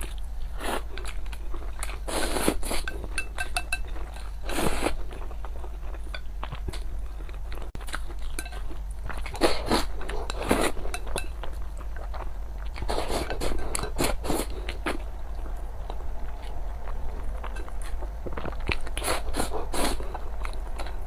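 Close-miked eating: a person biting and chewing crunchy food, with sharp crunches every few seconds between quieter chewing.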